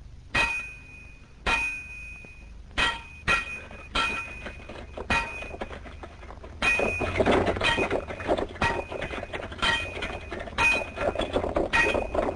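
Hand rock-drilling: hammers striking steel drill rods, each blow a sharp metallic clang that rings briefly. The blows come about once a second at first, then closer together and overlapping from about seven seconds in, over a rougher rattling noise.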